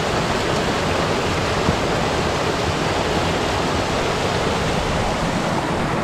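A mountain stream in a partly frozen valley, its water rushing steadily and evenly over the rocks.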